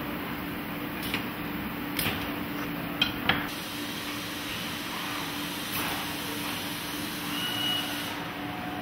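Automated robot work cell with Stäubli arms and a pallet conveyor running with a steady machine hum. A few sharp mechanical clacks come in the first few seconds, the loudest two in quick succession about three seconds in.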